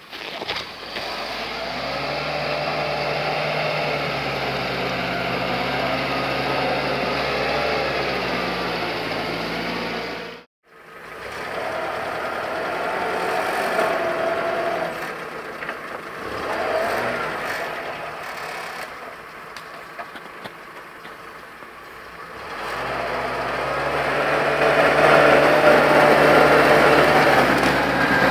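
UAZ-469 off-roader's engine running steadily as it drives through deep snow, cut off briefly about ten seconds in, then quieter, and growing louder near the end as the vehicle passes close.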